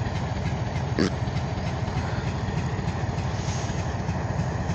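Oil Creek & Titusville diesel locomotive running with its grain hoppers, under a heavy, choppy low rumble of wind on the microphone. A single sharp knock comes about a second in.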